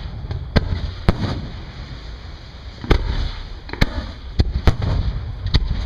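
Aerial fireworks shells bursting overhead: about half a dozen sharp booms at uneven intervals, over a continuous low rumble of further bursts and echoes.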